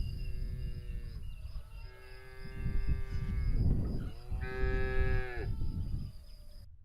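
A cow mooing three times, each moo a long drawn-out call that drops in pitch at its end, over a low rumble.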